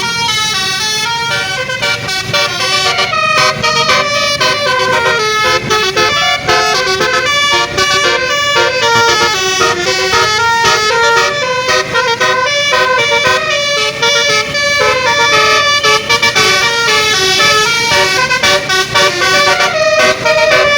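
Bus basuri (telolet) musical air horn playing a tune: several horn notes sounding together and changing pitch in quick steps, very loud.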